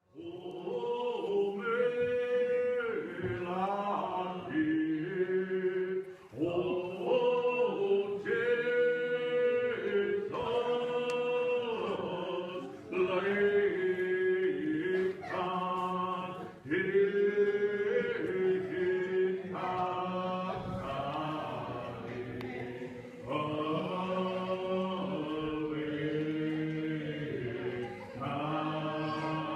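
A congregation singing a hymn unaccompanied, in the Muscogee Creek language, in sustained phrases with short breaks between them.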